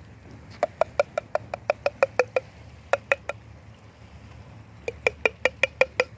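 A metal cat-food tin struck in quick runs of ringing taps, about six a second: a long run, three taps, then a shorter run near the end.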